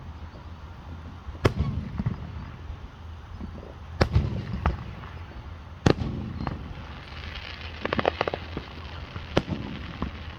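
Fireworks going off: single sharp bangs about a second and a half in, around four, five and six seconds in, and near nine seconds, with a rapid run of crackling pops around eight seconds.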